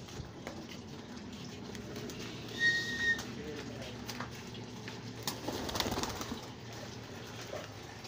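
Domestic pigeons cooing low and steadily. A short high whistle comes about two and a half seconds in, and a brief scuffing noise near six seconds.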